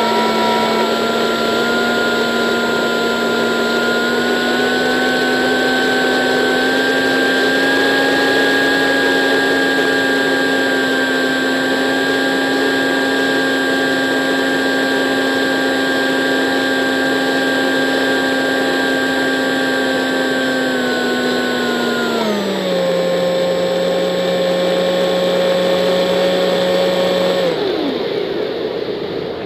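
Electric motor and propeller of a radio-controlled model plane, heard from an onboard camera, running at a steady high whine. The pitch steps down about 22 seconds in as the throttle comes back, then the motor cuts off near the end with a quick falling whine, leaving wind rushing past the airframe.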